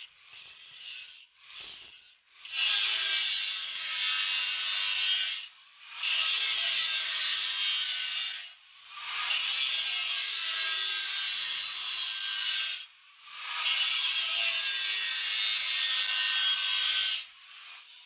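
Angle grinder disc grinding the steel of a chainsaw guide bar. It comes in passes of a few seconds each, with the grind dropping briefly between passes and shorter passes near the start.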